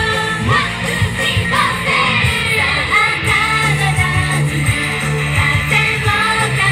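Live idol-pop performance: a group of young women singing in unison into microphones over upbeat pop music with guitar and a steady beat, played through PA speakers. The voices come in about half a second in.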